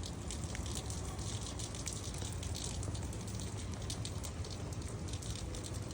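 Light rain falling outdoors: many small drop ticks over a steady hiss, not a downpour.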